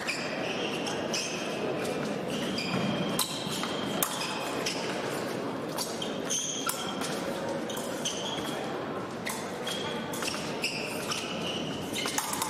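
Fencers' footwork on the piste, irregular stamps, thuds and shoe squeaks, with occasional metallic clicks of épée blades, over the murmur of a large hall.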